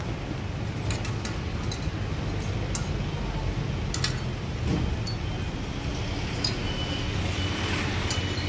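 Metal tongs clicking and clinking a few times against a metal wheel-cake griddle as red bean cakes are lifted and turned, over a steady low street rumble.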